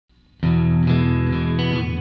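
Intro music with an effects-laden electric guitar, starting abruptly about half a second in.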